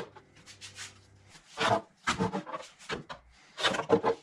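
Hands pressing and rubbing black pads into place on a car floor pan lined with sound-deadening mat: a few short scuffing rubs, the last around the end.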